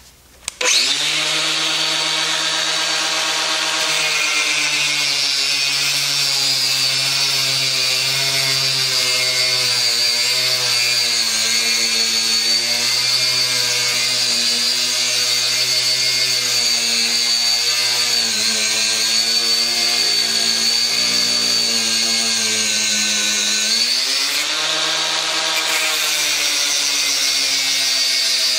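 Angle grinder with a thin cutting disc starting up about a second in and cutting through thick copper battery cable. The motor pitch wavers and sags as the disc bites into the cable, drops lower in the second half, then picks up again near the end.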